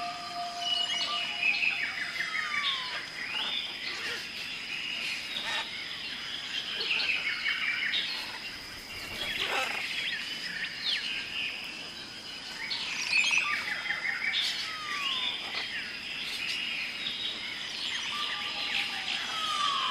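A flock of weaver birds chattering, with many overlapping chirps, trills and short downward-sliding whistles that swell and ebb in bouts every few seconds. A steady high-pitched insect tone runs beneath it.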